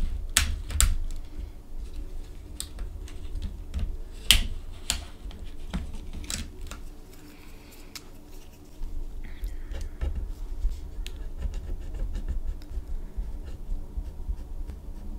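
Plastic gel pens clicking and knocking together as they are handled in a clear plastic pouch: sharp clicks and taps at first, a short lull, then lighter, quicker ticking as a pen is taken out and uncapped.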